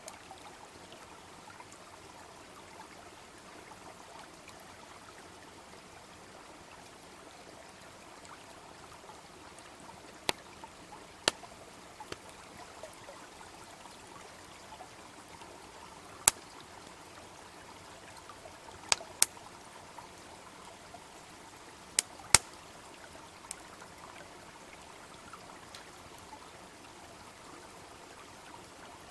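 A babbling brook runs steadily behind a wood fire, which gives about seven sharp crackling pops scattered through the middle of the stretch.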